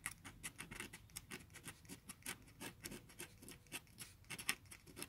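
Steel dip-pen nib scratching over textured, hanji-like Doosung Inuiyeji Gureum 120 g paper while writing Korean letters: a faint, irregular run of short scratchy pen strokes. The paper's surface gives the nib a gritty, catching feel.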